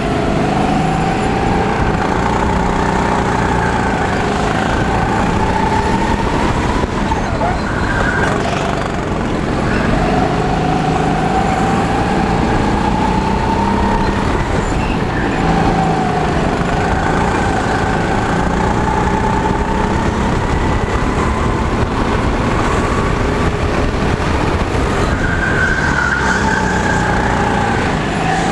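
Sodi RT8 go-kart's engine heard on board at racing pace, its note rising slowly along the straights and dropping back into the corners, several times over.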